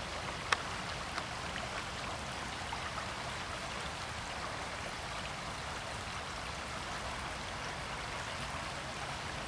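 A shallow stream running over stones: a steady rush of flowing water. A few small clicks come in the first second, one sharp one about half a second in.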